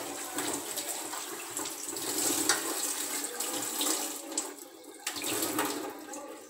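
Kitchen tap water running and splashing over the plastic head of a canister filter as it is rinsed in a stainless steel sink. The rushing water noise drops away about two-thirds of the way in, as the tap is turned off.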